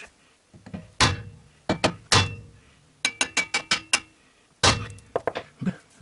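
Hammer blows on the steel of a Honda Civic's front suspension, struck at the ball joint to drive out a rusted ball-joint taper that stays stuck. There are a few separate heavy blows, then a quick run of about six ringing metallic strikes, then a few more blows.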